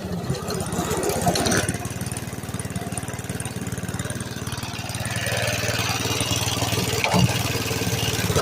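Old lawnmower's small gasoline engine, fitted with a small motorcycle carburetor, running steadily with a fast, even firing beat. It gets a little louder about halfway through.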